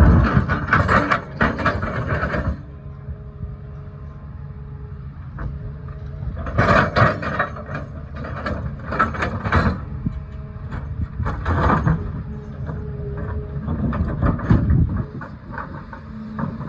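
Caterpillar excavator's diesel engine running with a steady drone, broken by repeated bursts of loud clattering and scraping from the digging: near the start, through the middle, and briefly again later.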